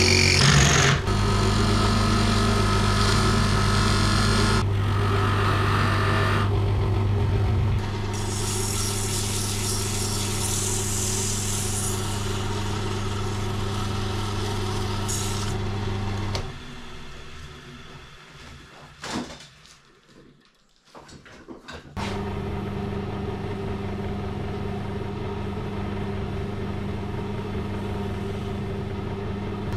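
Wood lathe running with a steady motor hum, with the hiss of a drill bit and then sandpaper working the spinning wood. About halfway through the hum dies away to near quiet, then comes back about five seconds later.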